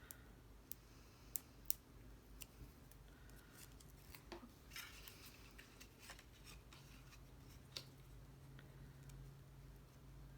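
Faint clicks and a brief soft rustle of hands handling small cardstock pieces while assembling a paper card.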